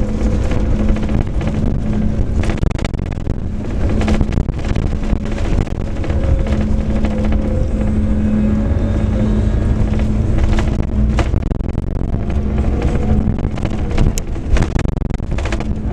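Scania K410 coach on the move: a steady engine drone with a constant low hum whose upper tone drifts a little in pitch, over road rumble and occasional short rattles.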